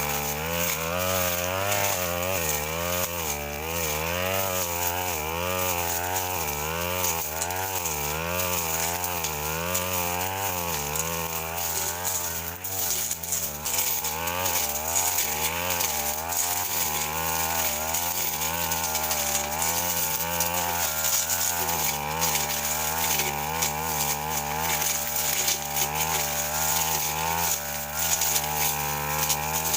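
Stihl FR 3001 backpack brush cutter's two-stroke engine running at high revs, its pitch rising and falling about once a second, then holding steadier, as the blade is swung through woody brush.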